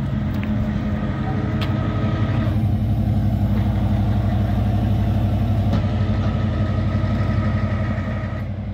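Rollback tow truck's engine running at a steady idle with an even, rapid throb, fading out near the end.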